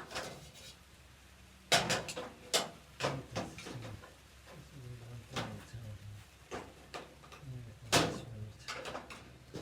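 Parts of a steel dump cart knocking and clanking as they are fitted together by hand, a series of separate sharp knocks, loudest about two seconds in and near the end.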